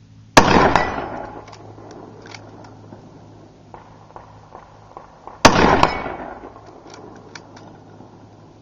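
Two shots from a Nemesis Arms Vanquish .308 bolt-action rifle, about five seconds apart, each a sharp crack followed by about a second of echo rolling off the hills. A few faint clicks come between and after the shots.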